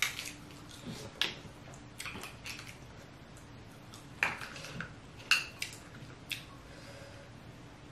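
Close-miked eating sounds: scattered sharp, wet clicks and snaps, about eight of them, as cooked snow crab leg is handled, the shell picked at and the meat eaten.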